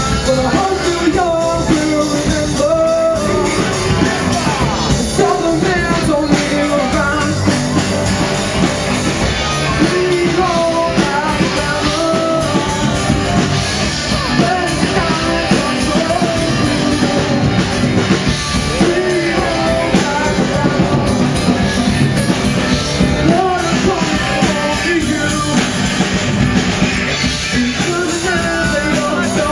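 Live rock band playing a country-rock song: a young male singer over electric guitar, electric bass, fiddle and drums.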